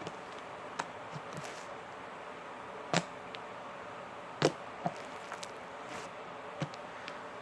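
Soft slime being squeezed and worked by hand, giving scattered sharp pops and clicks over a steady background hiss. The two loudest pops come about three and four and a half seconds in.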